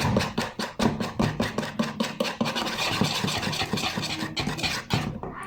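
A utensil scraping and knocking around a bowl as pancake batter is stirred, in quick even strokes about five a second, stopping just before the end.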